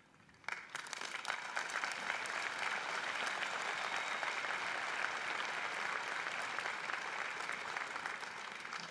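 Large crowd applauding. The clapping starts about half a second in, holds steady, then thins slightly near the end.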